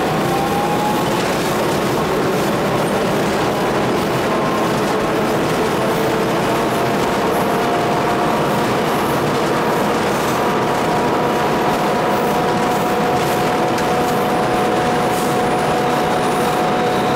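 Alco WDM3A diesel locomotive heard from inside its cab while running: a steady, loud drone of engine and rail noise, with a few thin whining tones that slowly rise in pitch and one more that joins about six seconds in.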